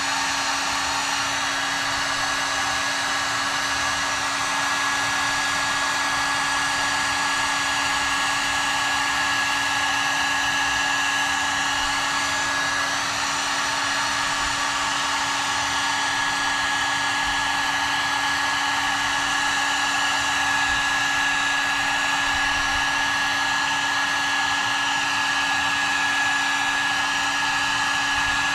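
Cheap electric heat gun blowing continuously, a steady rushing of hot air with a constant motor hum, used to soften tape and paper patterns so they peel off a wooden workpiece.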